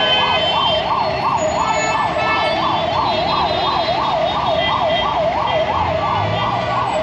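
Ambulance siren sounding a fast yelp, its pitch rising and falling about three times a second, over the noise of busy road traffic.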